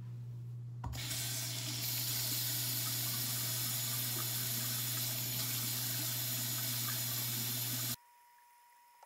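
Tap water running into a sink as a stained plush pillow is rinsed under it by hand, turned on about a second in. A steady low hum runs underneath, and both cut off abruptly near the end.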